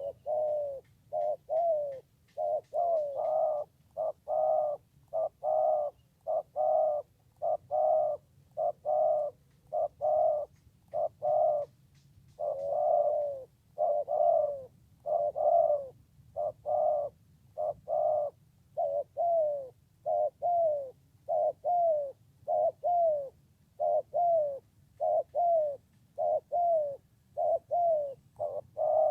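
Spotted dove (tekukur) cooing in a long, unbroken series of slightly falling coo notes, a little more than one a second.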